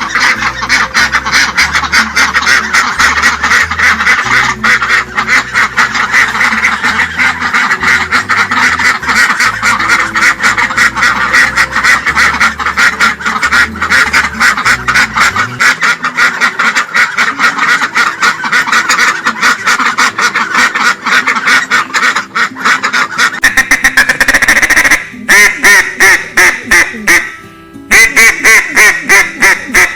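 Ducks quacking: a dense, continuous chorus of many overlapping quacks from a flock, then, about 25 seconds in, a closer run of separate loud quacks several a second.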